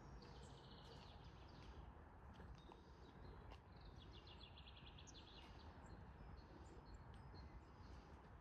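Faint forest birdsong: scattered high chirps from several birds, with a rapid trill of repeated notes just after the start and another around four seconds in, over a low steady background rumble.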